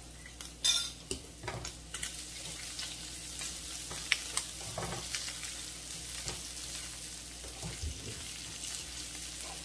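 Sliced sausage with garlic and ginger sizzling steadily in a non-stick frying pan, while a slotted spatula scrapes and clicks against the pan as the pieces are turned. A sharp clink sounds less than a second in.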